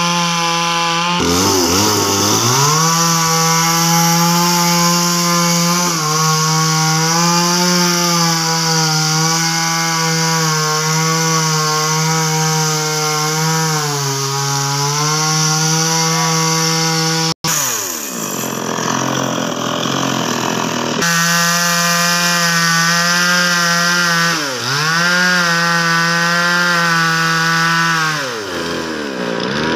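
Handheld petrol chainsaw running at high revs while sawing through a tree trunk, its engine pitch dipping and recovering several times as it loads in the cut. There is an abrupt break a little past halfway, after which the saw runs at a lower, rougher pitch for a few seconds before picking up again.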